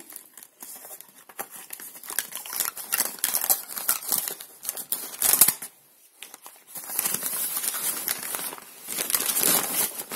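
Crumpled packing paper crinkling and rustling as hands handle and fold it around a plant. It is loudest about five seconds in, with a short lull just after.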